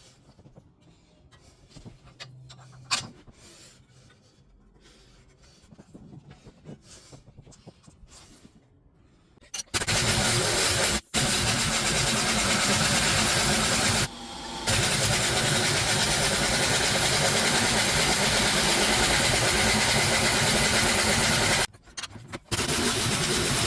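Faint clicks and handling noises with one sharp click, then a 2007 Honda Pilot running: a loud, steady engine and road noise that starts abruptly about ten seconds in and is cut short briefly two or three times.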